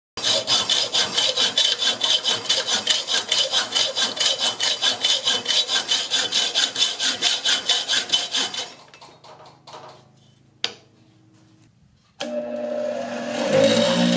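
Hacksaw cutting through a steel leveler bolt held in a vise, with quick, even back-and-forth strokes at about five a second for some eight seconds, then stopping. A single sharp click follows. About twelve seconds in, a bench grinder starts and runs steadily, getting louder near the end.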